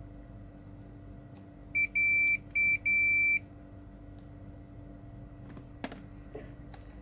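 An electronic beeper sounding four high beeps in quick succession, uneven in length, the second and fourth longest. A few light clicks follow a couple of seconds later.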